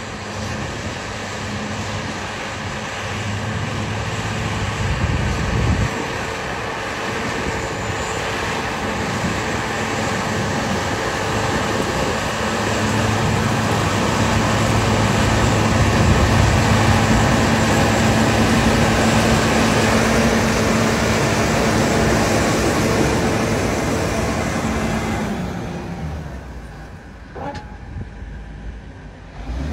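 A heavy vehicle running, with a steady mechanical drone that swells toward the middle and then falls away sharply near the end.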